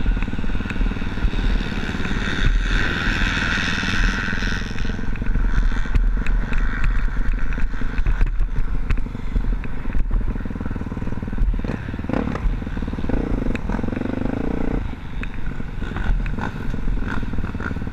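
Motocross dirt bike engines running hard during a race, with a higher-pitched engine note loud for a couple of seconds a few seconds in.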